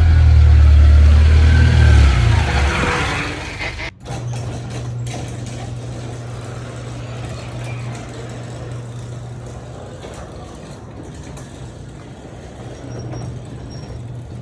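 Motor vehicle noise: a loud, low rumble with a rising hiss for the first few seconds, then an abrupt cut about four seconds in to a steadier, quieter low hum of a running vehicle.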